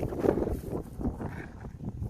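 Wind buffeting the microphone: an irregular, gusting low rumble with a few small knocks.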